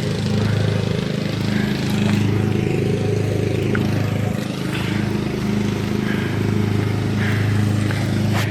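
Lawn mower engine running steadily, a small-engine drone whose level swells and dips slightly.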